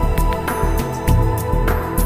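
Background music: a calm new-age style track with sustained tones and a light regular beat.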